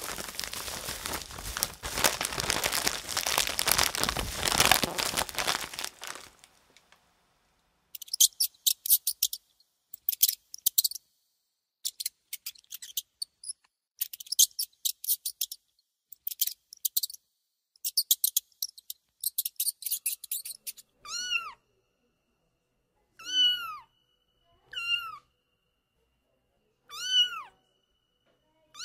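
A run of sound effects. First comes about six seconds of dense rustling noise. Then, for about thirteen seconds, clusters of rapid, very high-pitched squeaks. In the last part, short meows each fall in pitch, about four of them roughly two seconds apart.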